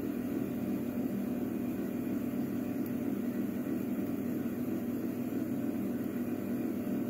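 Steady low background hum and hiss, with no distinct clicks or handling sounds standing out.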